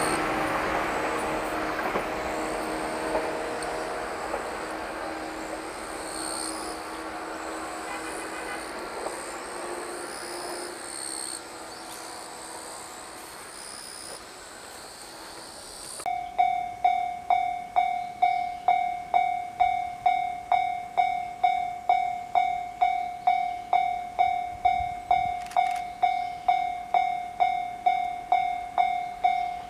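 A train's running noise fading away as it recedes. After a sudden cut about halfway through, a level-crossing warning bell rings steadily, a sharp electronic ding about twice a second.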